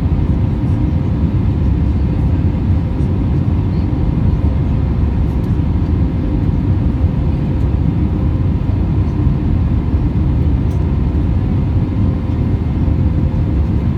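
Airbus A320 cabin noise in the climb after takeoff: the jet engines and airflow make a steady low rumble with a faint steady hum, heard inside the cabin.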